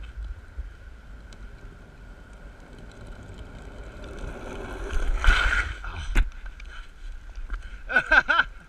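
Longboard wheels rolling fast on wet tarmac, a steady rumble and hiss mixed with wind on the microphone, with a louder rasp about five seconds in. Near the end a run of short, wavering high squeals begins.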